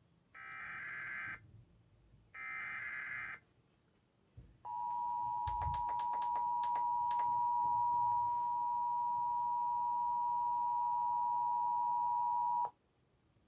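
Emergency Alert System broadcast alert: two short bursts of screeching digital SAME header data, then the EAS attention signal, a steady two-pitch tone that holds for about eight seconds and cuts off suddenly. A string of clicks sounds over the tone during its first few seconds.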